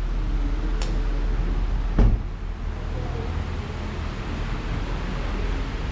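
Steady low rumble of a vehicle running, with a sharp click just under a second in and a heavier thump about two seconds in.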